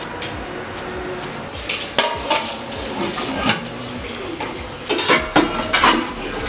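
Metal spoon scraping and clinking against a steel kadai while stirring a thick prawn curry; the sharp scrapes start about two seconds in and come in quick clusters near the end.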